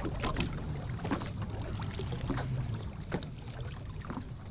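Lake water lapping and splashing against the side of a fishing boat while a fish is netted, in short irregular splashes over a steady low rumble.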